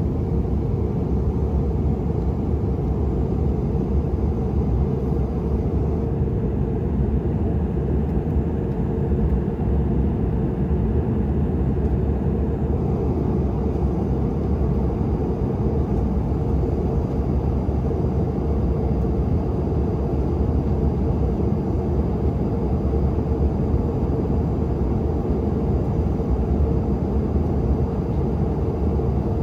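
Steady, low-pitched cabin noise inside a Bombardier CRJ-900 airliner in flight: the even drone of its two rear-mounted turbofan engines and the air rushing past the fuselage.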